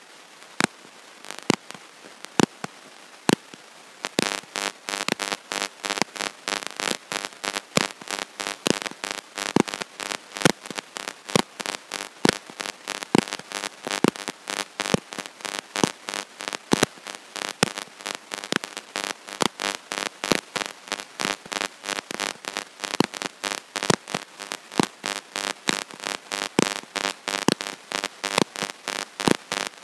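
Crackling recording fault: loud, sharp clicks, a few sparse ones, then from about four seconds in a dense, irregular stream of several clicks a second with a buzzy edge, drowning out the talk.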